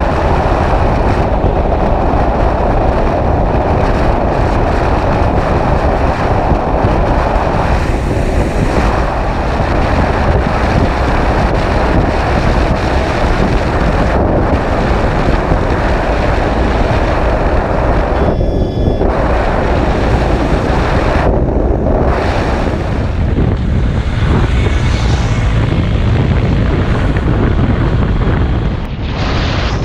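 Motorcycle at road speed heard through the bike-mounted camera's microphone: loud, steady wind rush buffeting the mic over engine and tyre noise. The level dips briefly near the end.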